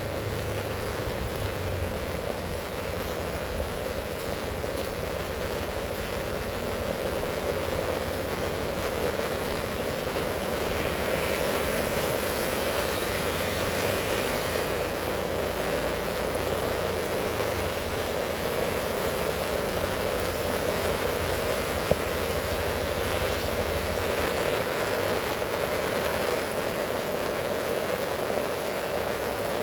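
Heavy rain falling in a steady downpour, an even hiss with no let-up, with one sharp click about two-thirds of the way through.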